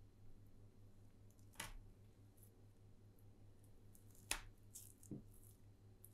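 Metal bench scraper cutting through dough and tapping on a bamboo cutting board: a few faint, sharp taps, the loudest about four seconds in, over a low steady hum.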